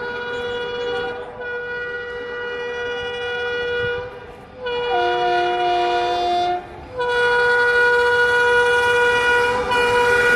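Approaching express train's horn sounding in long held blasts. One steady note breaks off briefly about a second in and again around four seconds, a different chord sounds between about five and six and a half seconds, then the first note is held again. The train's running noise grows louder underneath as it nears.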